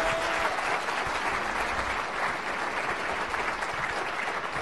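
Audience applauding, a sustained round of clapping that slowly fades toward the end.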